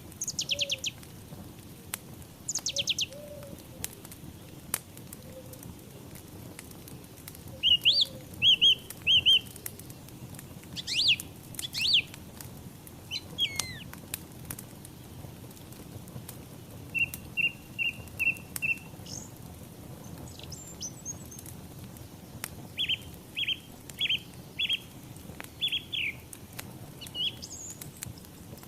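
Small birds chirping in repeated short series of high notes, with an occasional sharper two-note call. Underneath, a wood fire crackles with scattered sharp pops and a steady low rush.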